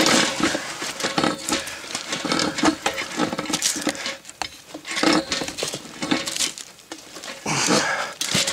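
Tongue-and-groove pliers working a brass fitting on a pressure-tank tee: irregular metal clinks, scrapes and knocks as the joint is tightened.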